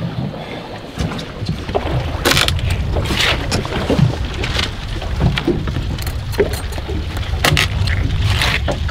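Wind buffeting the microphone over the steady wash of open-sea water around a small boat, with several brief knocks and splashes.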